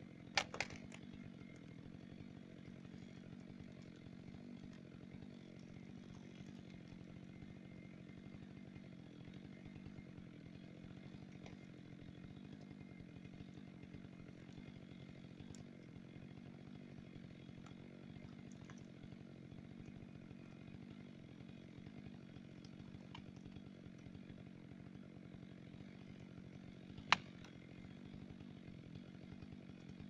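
Faint chainsaw engine running steadily at one even pitch, with no revving. Two sharp knocks cut through it, one just after the start and a louder one near the end.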